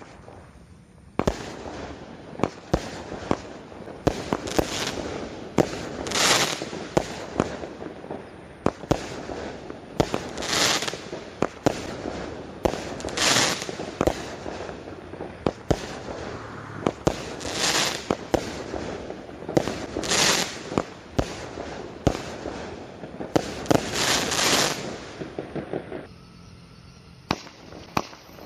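A 20-shot fireworks cake firing: a rapid run of sharp bangs over continuous crackling, with a hissing rush every few seconds. The firing dies down near the end, then a few more pops follow.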